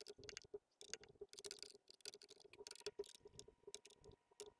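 Quick, irregular run of faint clicks and ticks as the cover screws of an e-bike rear hub motor are tightened, which the repairer takes for the motor's gears meshing and seating back together.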